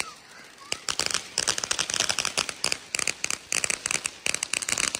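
Small fireworks crackling: rapid sharp pops in dense clusters, starting after a brief lull about a second in.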